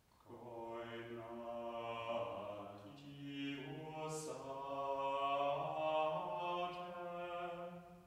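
A man's unaccompanied voice chanting plainsong, holding long steady notes on a reciting tone, moving to a higher note about three seconds in and stopping just before the end.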